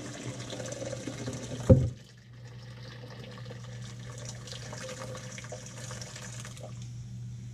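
Hot fish stock poured from a stainless steel pot into a colander in the sink, splashing steadily. About two seconds in comes a single loud knock, after which the pour goes on as a lighter trickle and patter over a steady low hum.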